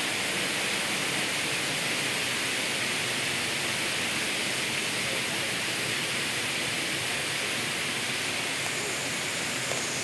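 River rapids and waterfall rushing: a steady, even hiss of falling water.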